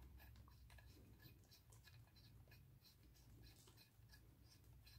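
Near silence: faint light scratching and small ticks of hands handling a camshaft and its VVT timing gear, threading the centre bolt in by hand, over a low hum.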